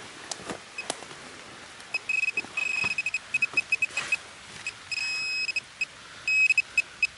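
Metal detector beeping at one steady high pitch, in bursts of short beeps and a held tone of about half a second, the signal of a metal target in the freshly dug hole. The beeps start about two seconds in, after a few sharp scrapes and knocks of a trowel in the soil.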